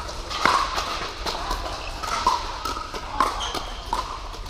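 Pickleball paddles hitting a hard plastic ball in a rally: a run of sharp pops at uneven spacing, about two to three a second, echoing in a large hall, with fainter paddle hits from neighbouring courts.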